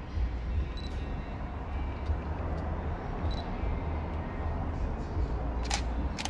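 Digital SLR camera shutter firing, two sharp clicks close together near the end, over a steady low rumble and hiss.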